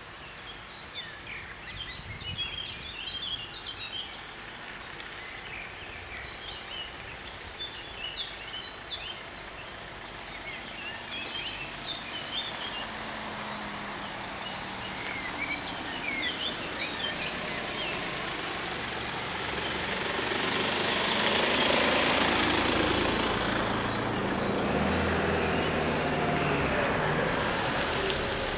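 Birds chirping over a soft outdoor hiss, then from about two-thirds of the way in a swelling rumble with a low engine drone from an approaching vehicle, which becomes the loudest sound.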